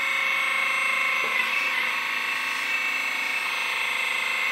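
Hydraulic pump of a JDMODEL 1/14 EC360 V2 RC excavator running with a steady high whine while the boom and arm are worked down to dig; the pitch dips slightly a couple of times.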